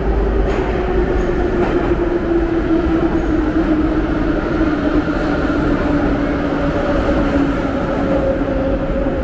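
Metro train pulling into an underground station and braking: a steady rumble with a whine that falls in pitch as the train slows.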